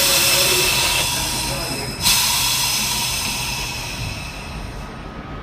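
Compressed air hissing out of the SMEE air brake valve in a vintage subway car's cab: a loud rush that is already running and fades, then a second sudden burst about two seconds in that dies away over the next few seconds, as the operator works the brake handle before the train moves off.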